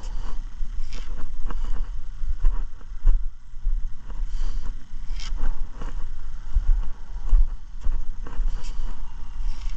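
Buffeting low rumble of wind on a body-worn camera's microphone, with footsteps on asphalt about once a second as the wearer walks.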